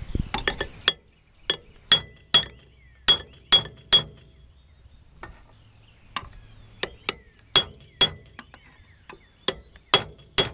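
Ball-peen hammer striking a steel drift punch against a rusted truck driveshaft yoke, knocking it off the shaft at the hanger bearing. Sharp metal-on-metal blows, each with a short ring, come in quick runs of a few strikes with a pause of a couple of seconds in the middle.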